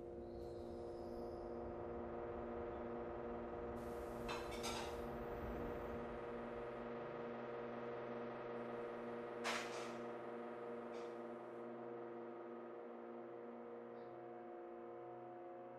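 A sustained, unchanging drone chord of several held tones, a film-score synth pad, with a few faint clicks about four and nine seconds in.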